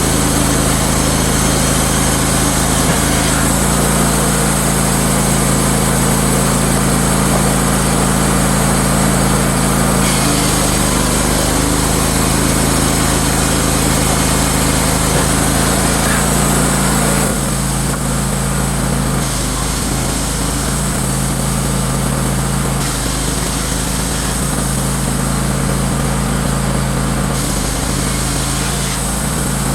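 Wood-Mizer LT15 Wide portable band sawmill running steadily under power while sawing lumber. About two-thirds of the way through, the sound drops a little and the hiss of the cut thins out.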